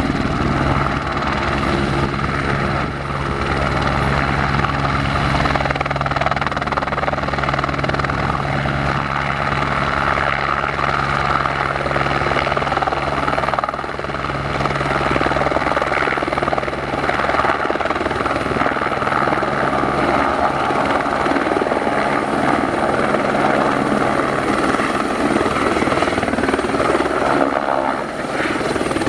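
Single-engine Airbus H125M helicopter running: a steady turbine sound with the fast beat of the main rotor. A low hum in the mix fades out about halfway through.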